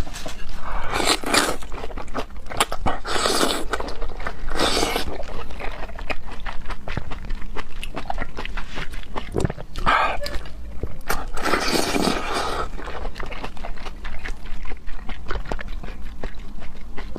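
Close-miked eating of raw oysters: wet chewing with many small mouth clicks, and several louder rushing mouth sounds about half a second to a second long.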